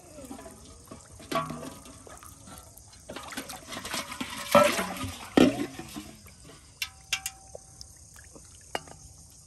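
Water splashing and sloshing, loudest in two heavy splashes about halfway through, with scattered clicks and knocks around it.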